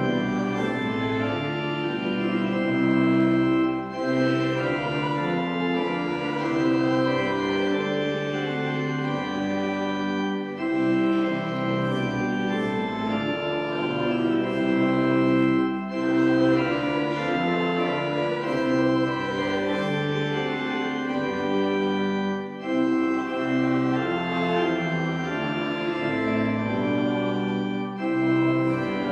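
Church pipe organ playing sustained chords in phrases a few seconds long, with brief breaks between phrases.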